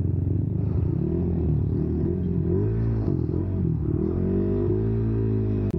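Motorcycle exhaust note through a JVT V4 teardrop aftermarket pipe while riding, the engine speed rising and falling several times.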